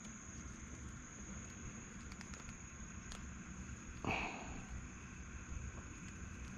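Quiet open-air ambience with a steady high-pitched insect drone and a low rumble. About four seconds in comes one short, sharp handling noise that fades quickly, while a caught freshwater prawn is held on the hook.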